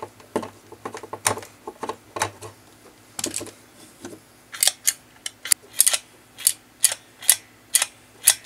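A homemade 3D-printed pinball flipper mechanism handled with scattered clicks, then from about halfway a run of sharp clacks, two or three a second, as the plunger and flipper link are worked by hand against the return spring and end-of-travel screw.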